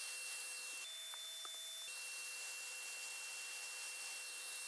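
Electric HVLP paint spray gun spraying filler primer: a steady hiss of air and paint over a steady motor whine. For about a second, starting just under a second in, the tone shifts and a couple of faint ticks are heard.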